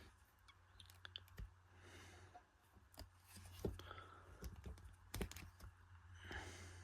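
Faint, scattered small clicks and taps of a plastic dinosaur action figure being handled, its jaw worked open and shut.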